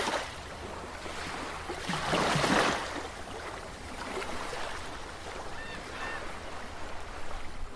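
Sea ambience: waves washing steadily, with one louder wave surging about two seconds in.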